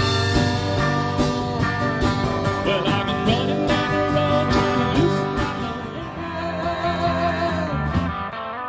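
Live band playing a guitar-led song.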